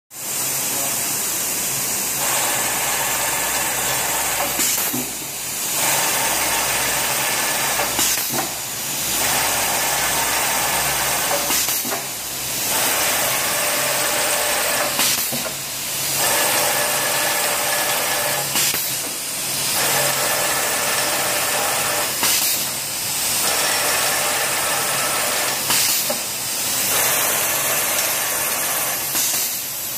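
Card friction feeder machine running: a steady motor whir and hiss with a low hum, and a brief change in the sound about every three and a half seconds as it cycles.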